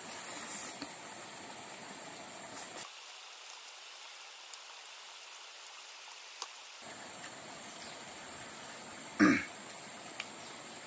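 A person eating rice and omelette by hand, with faint chewing and mouth clicks over a steady hiss. About nine seconds in comes one short, loud throat noise that drops in pitch.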